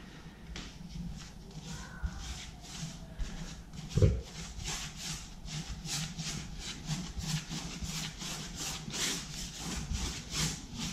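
Bristles of a Zibra 1-inch square polyester paint brush rubbing back and forth on a wall, spreading wet paint in quick repeated strokes, about three a second. A single dull thump about four seconds in.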